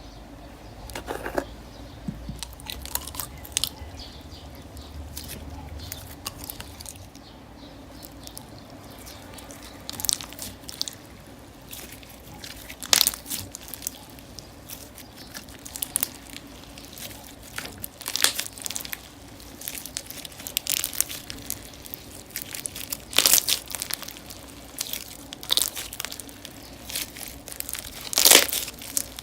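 Hands squishing and stretching cloud slime: irregular crackles, crunches and soft tearing sounds, with a few louder pops.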